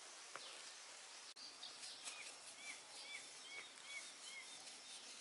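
Faint outdoor background hiss with a bird calling a short chirp over and over, about twice a second, from about two seconds in until near the end.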